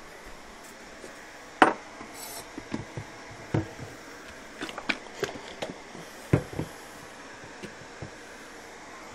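Kitchen items handled on a counter: a scattered series of sharp knocks and clinks of dishes and a bottle, the loudest about a second and a half in and again about six seconds in.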